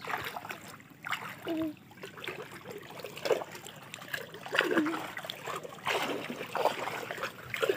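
A hand dabbling in shallow floodwater, making small, irregular splashes and trickles.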